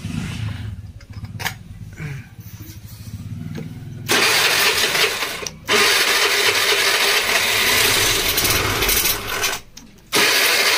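Mahindra Gusto scooter's single-cylinder engine running on a substitute Honda CDI: a low rhythmic idle for about four seconds, then revved hard and loud, dropping back briefly near the end before revving again. The clean pick-up shows the swapped-in CDI is firing the engine properly.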